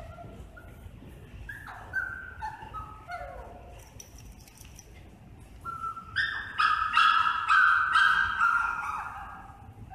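Dog whining and yipping in short high calls, building about six seconds in to a louder run of high whines that fades out near the end.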